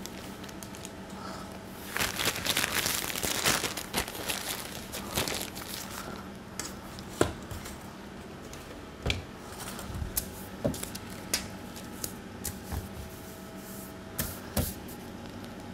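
Crinkling and rustling of baking parchment and a piping bag being handled, loudest in a burst about two seconds in, followed by scattered light taps and knocks as the parchment is laid and smoothed on a steel counter. A steady low hum runs underneath.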